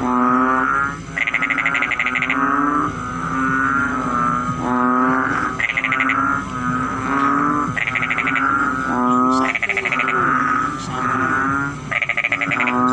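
Several frogs calling together in a steady chorus. Low, drawn-out droning croaks overlap with short, rapid pulsed calls that come every two seconds or so.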